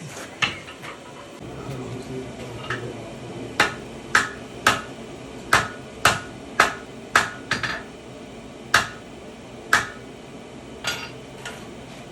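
Hammers striking hot iron on an anvil while a tomahawk is forged: about a dozen sharp, unevenly spaced blows with a short metallic ring, most of them bunched in the middle and later part.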